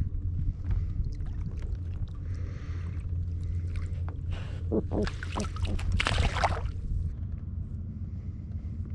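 Wind rumble on the microphone and water sloshing around a fishing kayak. A louder rush of splashing or handling noise comes about five to six and a half seconds in.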